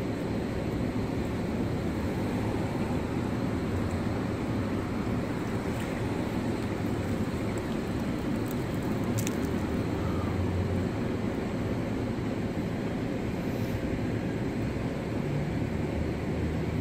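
Steady road-traffic rumble with no let-up, with a couple of faint clicks about halfway through.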